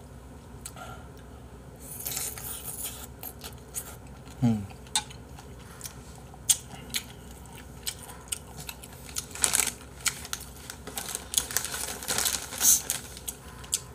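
Close-up eating sounds: a metal spoon clicking and scraping against a bowl of soup, with chewing and a few short noisy bursts of slurping. A short hum with a falling pitch about four and a half seconds in.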